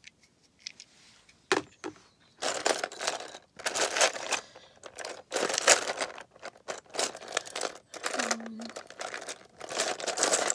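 Loose plastic Lego pieces clattering and rustling as a hand rummages through a plastic tub of parts, in a run of irregular noisy bursts starting about two seconds in.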